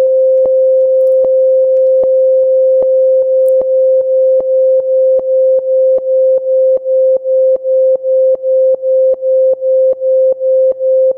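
Steady sine-wave tone of about 500 Hz, sidechain-compressed by a C1 compressor keyed from a silent kick. It ducks in level at each kick with a faint click, about two and a half times a second, and the dips get deeper as the compressor threshold is brought down.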